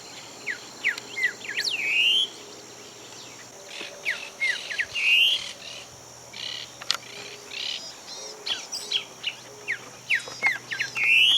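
Wild birds calling, a string of short chirps and falling notes, with a rising slurred note repeated three times.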